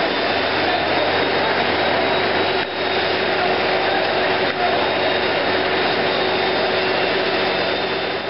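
A steady mechanical roar with a faint hum running through it, dipping briefly twice.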